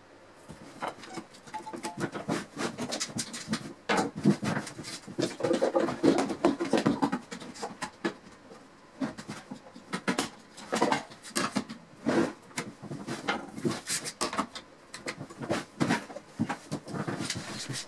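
One-handed bar clamps being set and squeezed tight on a glued plywood box: an irregular clatter of ratchet clicks and knocks of clamp bars and jaws against the wood, busiest a few seconds in.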